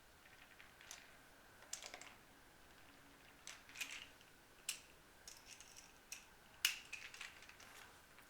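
Faint, irregular light clicks and rustles of small guitar hardware being handled and fitted: the Bigsby vibrato parts and mounting plate set onto the guitar body.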